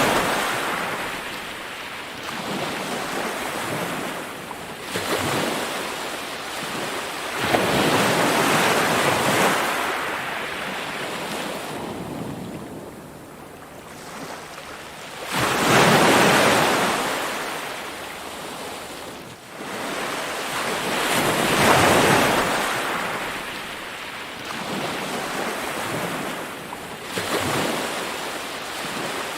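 Ocean waves breaking and washing in, swelling and ebbing in surges every few seconds. The loudest surge comes about halfway through.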